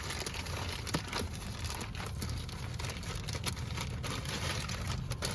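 Plastic packaging crinkling and rustling in irregular bursts as a new cabin air filter is unwrapped by hand, over a low steady rumble.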